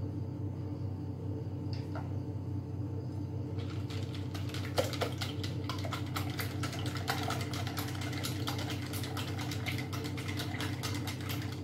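Hand whisk beating runny cake batter in a bowl: fast, steady clicking and tapping of the whisk against the bowl, starting about a third of the way in, over a low steady hum.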